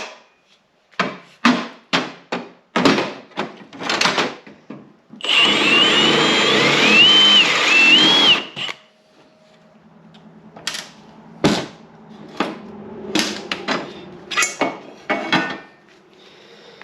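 Power drill drilling out a rivet for about three seconds, its whine wavering in pitch as it bites. Sharp clicks and knocks of the parts being handled come before and after.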